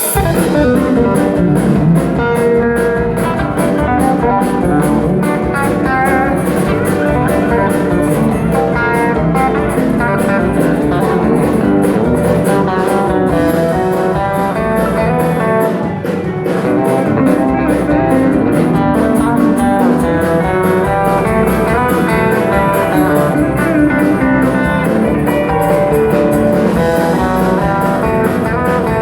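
Band music with guitar over a drum kit, played continuously at a steady loud level.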